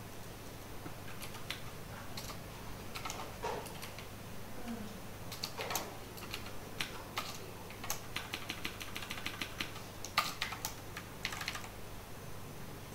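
Keystrokes on a computer keyboard while code is edited: scattered taps at first, then a fast even run of keypresses about eight seconds in and a few more clusters after it. A faint steady low hum runs underneath.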